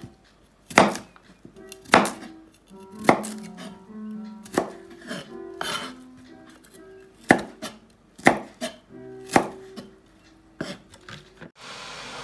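Knife chopping broccoli on a plastic cutting board: sharp knife strikes roughly once a second, over soft background music. Near the end a steady hiss takes over.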